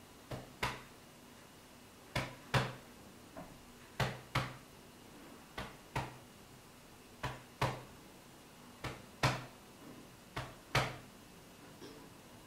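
Slow heartbeat sound effect: seven double beats, lub-dub, about a second and a half apart, the second beat of each pair the stronger.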